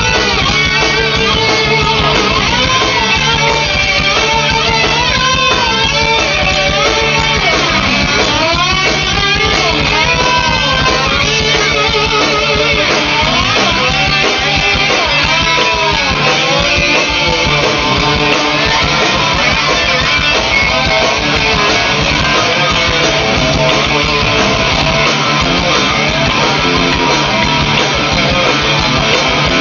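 Rock band playing live, with a lead electric guitar playing gliding, bent notes over a steady bass and drum backing.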